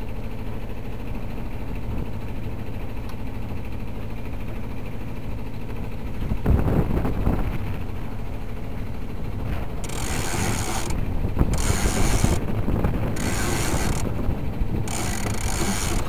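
A yacht's sheet winch ratcheting in four bursts of about a second each in the second half, as a sheet is hauled in, over a steady low rumble. There is a dull thump about six and a half seconds in.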